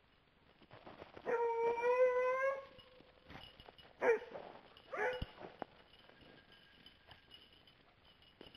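Coonhound baying: one long drawn-out bawl, rising slightly in pitch, then two short barks about a second apart.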